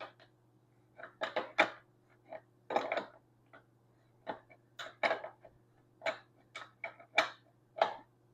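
A ratcheting wrench worked in short strokes on a motorcycle's rear axle nut, giving irregular metallic clicks and clinks, with a faint steady hum underneath.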